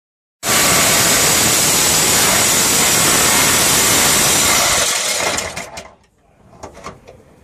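Handheld power tool cutting into a car's steel bodywork: a loud, steady cutting noise that starts abruptly, runs for about four and a half seconds, then winds down, leaving a few faint clicks near the end.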